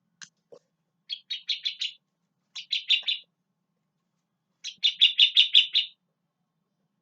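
Sooty-headed bulbul (kutilang) singing: three quick phrases of rapidly repeated bright notes, the last the longest and loudest.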